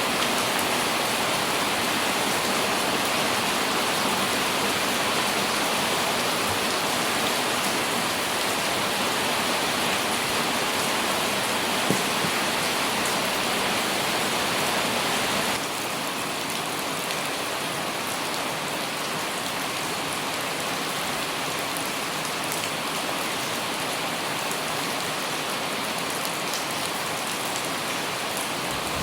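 Light rain pattering on an umbrella overhead: a steady hiss of rain with fine ticks of individual drops. About halfway through the sound abruptly steps down, a little quieter and thinner.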